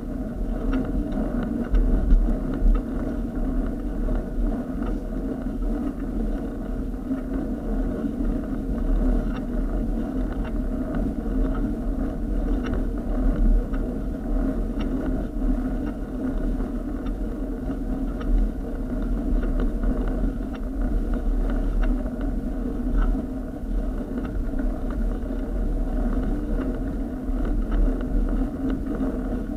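Bicycle climbing a steep, rough tarmac lane: a steady low rumble of tyres on the road surface, with wind on the microphone.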